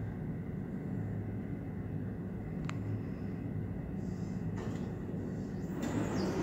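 Elevator running in its shaft with a steady low hum as the car comes up, a single sharp click a little before halfway through, and the elevator doors starting to slide open near the end.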